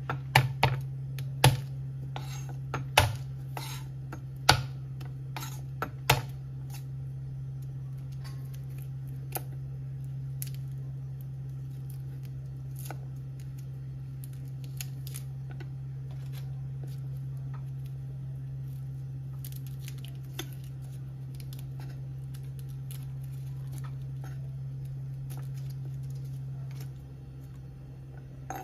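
Kitchen knife tapping and cutting on a wooden chopping board while garlic cloves are trimmed and peeled. About a dozen sharp knocks come in the first six seconds, then only faint scattered clicks, over a steady low hum that stops near the end.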